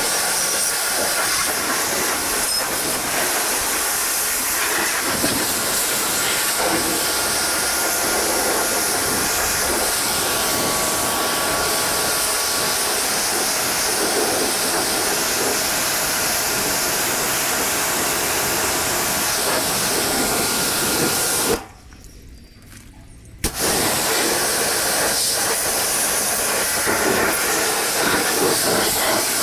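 Pressure washer jet spraying water onto a muddy tractor tyre and rear hitch: a steady, loud hiss of spray that breaks off for under two seconds about three quarters of the way through.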